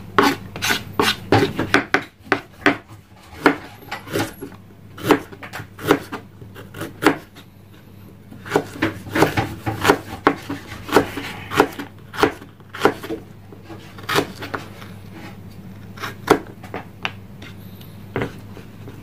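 Kitchen knife cutting ginger on a wooden chopping board: irregular knocks of the blade on the board, with a denser run of cuts about halfway through.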